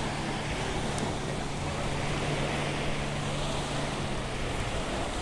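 Sea surf and wind, with wind buffeting the microphone, and a steady low hum that stops near the end.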